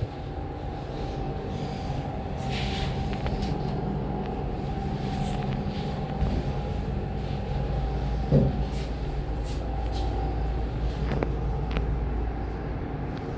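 Otis Spec 90 lift car travelling down the shaft: a steady drive hum with a thin constant whine, a low rumble that grows from about halfway, and scattered light clicks and rattles of the car.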